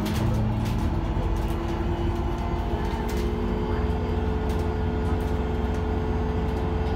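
An IVECO Urbanway 12 natural-gas city bus heard from inside the passenger cabin while it drives. The engine gives a steady low rumble with a steady whine over it, and light rattles and clicks come from the interior fittings.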